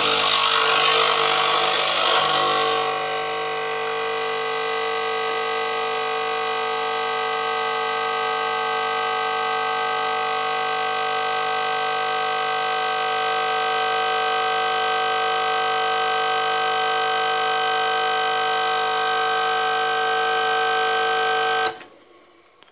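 Brasilia Lady espresso machine's vibration pump buzzing as it pulls a shot: louder and hissier for the first three seconds or so, then an even, steady hum until the pump is switched off abruptly about 22 seconds in.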